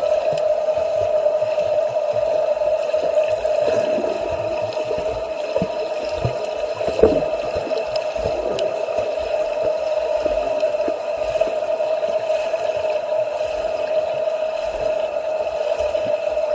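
Swimming pool ambience: water splashing and gurgling under a steady, even-pitched hum, with one sharp knock about seven seconds in.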